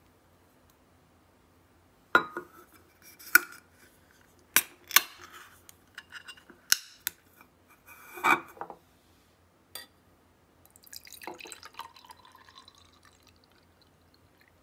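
Sharp clicks and knocks of a drink can being handled and its pull-tab opened. Then café au lait is poured from the can into a drinking glass, a splashing pour with a faint rising tone as the glass fills.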